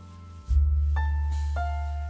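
Background instrumental music: a deep bass note struck about half a second in, with a few higher melody notes ringing over it.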